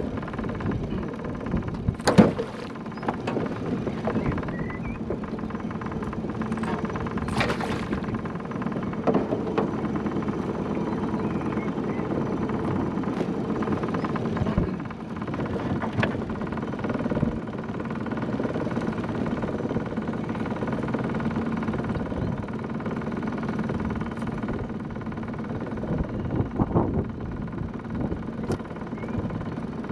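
Small petrol outboard motor running steadily on a small aluminium boat, with a few sharp knocks and clatters on the hull as a pike is landed and unhooked; the loudest knock comes about two seconds in.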